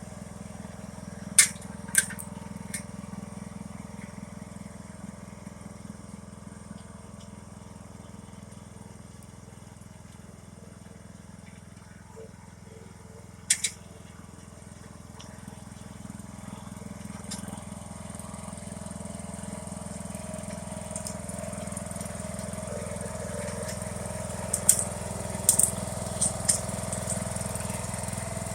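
John Deere Hydro 165 lawn tractor running steadily as its front plow pushes heavy sticks and debris. Sharp cracks come a few times: near the start, about halfway, and in a cluster near the end. The engine gets louder over the last third.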